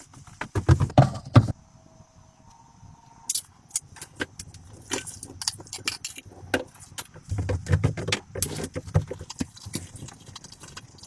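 Irregular clattering: a string of sharp clicks and knocks, with clusters of heavier thumps about a second in and again near eight seconds, like hard objects being handled and set down.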